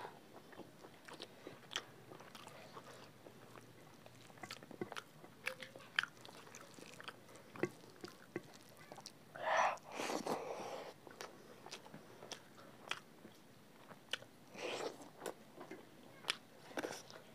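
Two people eating rice and egg curry with their fingers: close, wet chewing and lip-smacking, with many small mouth clicks and a few louder noisy stretches, the loudest just past halfway.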